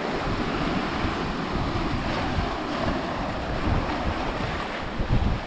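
Small waves surging and washing over a flat rock shelf at the water's edge, with wind buffeting the microphone, gusting harder near the end.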